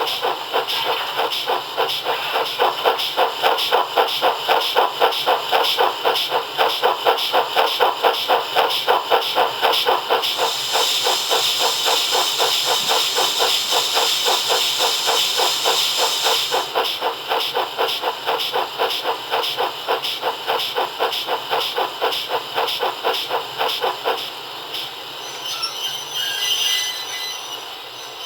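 Sound decoder in a 7mm-scale model of a GWR 45xx 2-6-2T tank engine playing steam locomotive sounds through its speaker: a rapid, even beat of exhaust chuffs, with added hiss for several seconds in the middle. About four seconds before the end the chuffs stop and a fainter hiss fades away.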